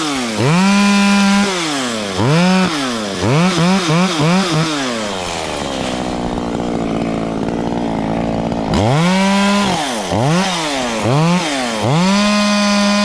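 Chainsaw engine revved again and again, in short blips and longer holds at full speed. In the middle the engine speed drops and stays lower for a few seconds before the revving resumes.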